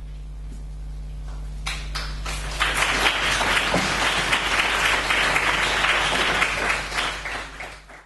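Audience applauding: a few scattered claps swell within a second into steady applause, which fades out near the end.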